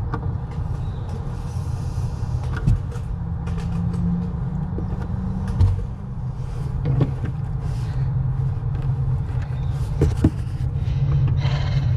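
An engine running steadily with a low rumble, with several short, sharp knocks, most likely from parts or tools being handled.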